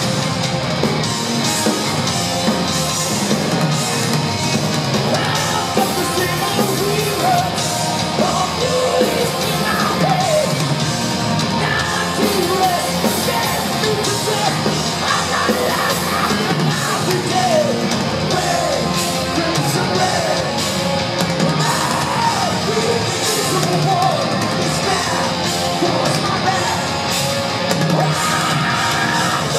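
Heavy metal band playing live: distorted guitars and a full drum kit, with a shouted, sung lead vocal coming in after about five seconds. It is heard from the audience, with the echo of a large hall.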